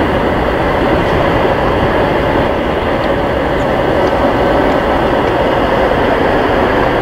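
Airbus A380-861's four Engine Alliance GP7200 turbofans running steadily as the jet taxis and turns.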